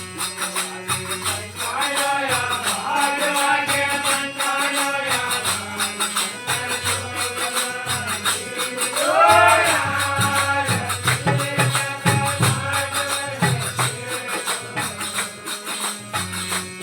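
Devotional aarti music: a bending melody over jingling, tambourine-like percussion keeping a steady beat.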